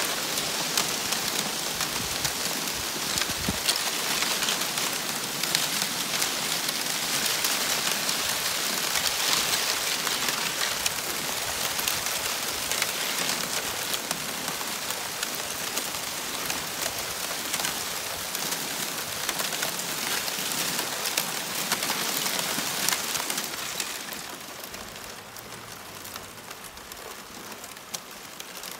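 Broken plates of thin sea ice shifting against one another, clinking and tinkling in a dense stream of small clicks. It grows quieter about four seconds before the end.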